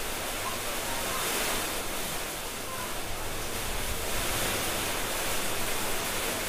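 A steady hiss with no distinct events.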